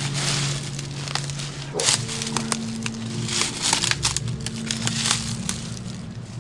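Irregular crunching and crackling of debris underfoot, over sustained, droning background music chords that shift about two seconds in.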